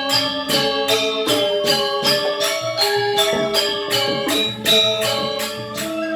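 Balinese gamelan music: bronze metallophones struck in a quick, even pulse of about three notes a second, each note ringing, with a bright metallic jangle on the beats.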